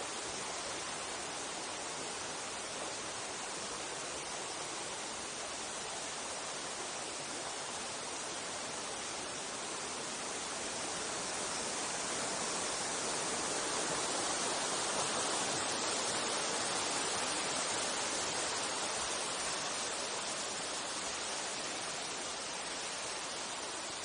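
Mountain stream rushing over rocks and small cascades, a steady wash of water that grows louder about halfway through, then eases off a little.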